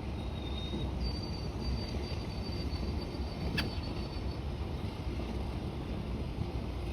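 Steady low rumble of outdoor background noise, with a faint thin high whistle held for about three seconds and a single sharp click midway.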